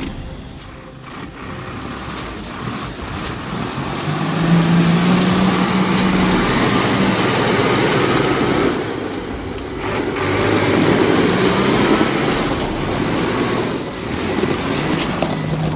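A truck's engine runs hard as the truck tries to push through deep slush and ice in a snow-choked river. The engine note rises and falls over a steady rush of churning noise, and it eases off briefly partway through.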